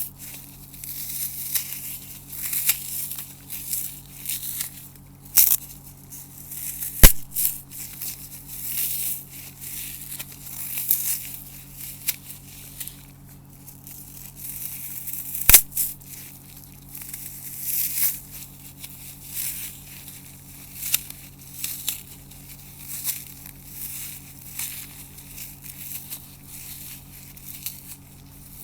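Dry, soap-coated floral foam cut into a grid being crushed, a continuous irregular crunching and crackling as the brittle foam crumbles, with two sharp snaps standing out, the first about seven seconds in and the second about halfway through.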